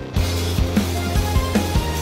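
Background music: a new passage starts just after the beginning with a steady drum beat, about two and a half beats a second, over a held bass line.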